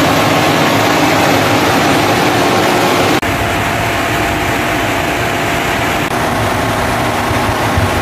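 Britânia Mega Turbo 130 W fan running steadily: a loud rush of air over a faint motor hum, with a brief sharp dip about three seconds in.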